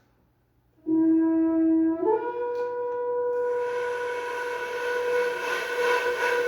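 Opening of an orchestral piece. After a moment of silence, a wind instrument enters with a long held note, then steps up to a higher note about two seconds in and holds it. A soft, hissing layer of other instruments joins about three seconds in.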